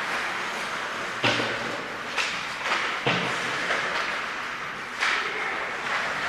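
Ice hockey play in an indoor rink: a handful of sharp knocks from sticks and puck striking the ice and boards, each ringing briefly in the big hall, over a steady hiss.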